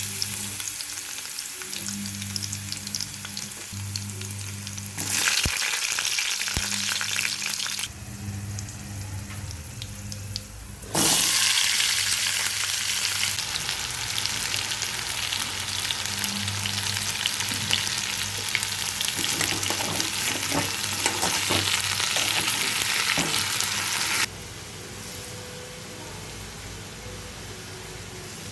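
Potatoes frying in hot oil, a steady sizzle with a few clicks of a utensil stirring them. The sizzle jumps louder or drops suddenly at several points and is loudest through the middle stretch.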